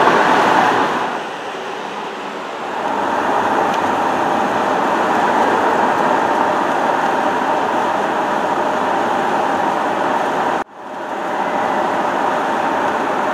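2021 Ford Mustang Mach 1 with its 5.0-litre V8 driving along a street: a steady mix of engine and road noise. It eases off briefly about a second in, then cuts out abruptly about ten and a half seconds in and comes back.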